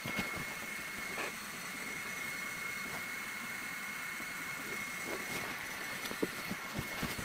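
Ortur Laser Master 3 diode laser engraver running as it burns a logo into end-grain wood: a steady hiss with a constant high-pitched whine and a few faint light ticks.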